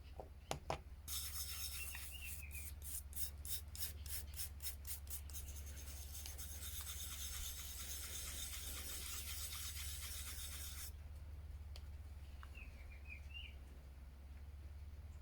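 Rubbing or scrubbing on a small old pocket watch to bring up the writing on it: a couple of clicks, then quick back-and-forth strokes that run into a steady scratchy hiss for several seconds and stop abruptly.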